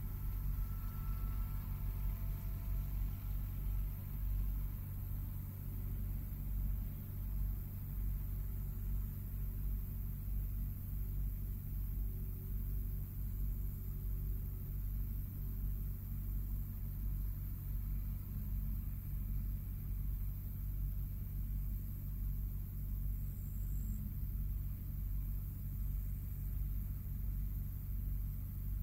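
Distant diesel engines of a self-propelled forage harvester and an MTZ 1221 tractor running steadily under load, heard as a low, even rumble; a fainter higher whine comes through in the first few seconds.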